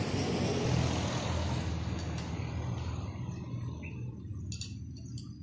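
A road vehicle passing by, its noise fading away over the first few seconds over a steady low hum. A few light clicks come near the end.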